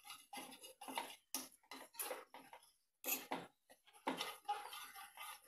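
Metal wire whisk beating cornflour and water in a plastic bowl, a quick uneven run of soft clicks and swishes as the wires hit the bowl, with a short pause about two and a half seconds in. The slurry is being whisked until no lumps remain.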